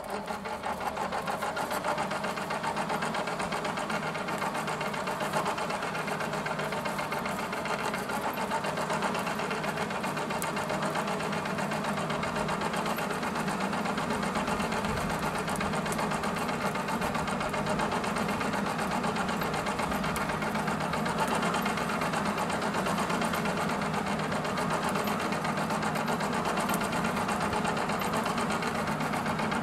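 Small electric motor running steadily with an even, buzzing rattle, the kind of sound made by a power tool or forge blower.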